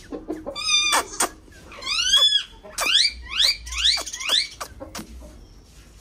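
Parrot calling: a string of sharp, pitched squawks, the last five or so coming quickly one after another and each sweeping down in pitch, after a few sharp clicks.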